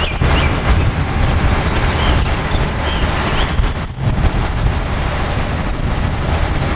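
DAF concrete mixer truck's diesel engine running steadily, with birds chirping now and then.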